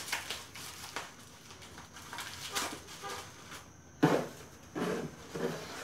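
Plastic wrapping and packing paper rustling and crinkling as items are unwrapped and pulled from a cardboard box, with a few short vocal sounds from a person in the last two seconds.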